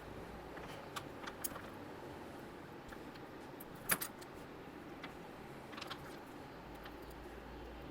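Small clicks and taps of hands handling an opened headphone earcup and its pulled-out cable, with one sharper click about four seconds in and a few light taps around six seconds.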